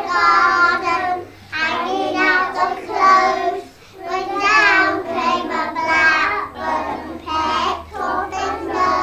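A child singing a song in short phrases, with brief pauses between them.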